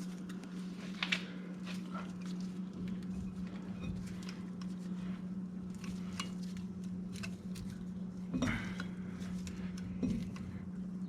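Scattered metal clinks and knocks of tools and an old brake pad against a brake caliper as both caliper pistons are pressed back at once, with a louder knock about a second in and two more near the end, over a steady low hum.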